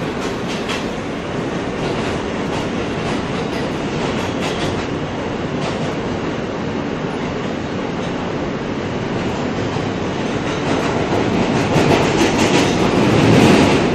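Running noise heard from inside a New York City subway car on an F local train moving between stations: a steady rumble with clacking wheels over the rails, growing louder near the end.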